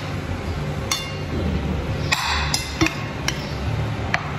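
Metal fork clicking and scraping against a plate while picking up rice, half a dozen sharp clinks with a short scrape about halfway through, over a low steady hum.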